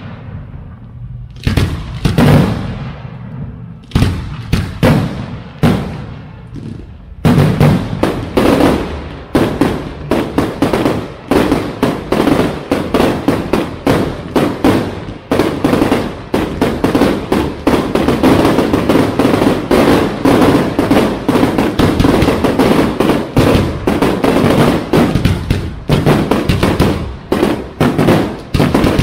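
Aerial fireworks going off: a few separate bangs, each trailing off, then from about seven seconds in a dense barrage of rapid bangs that keeps going.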